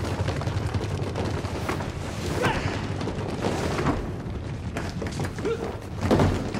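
Film fight-scene sound effects: a dense, continuous run of thuds, bangs and clashes.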